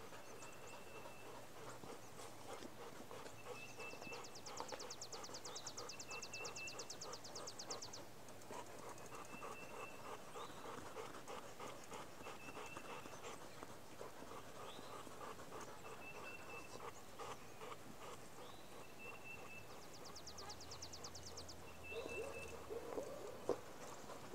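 A dog panting, faint and rhythmic. A short high chirp repeats every few seconds, and a fast high-pitched trill comes twice, once early and once near the end.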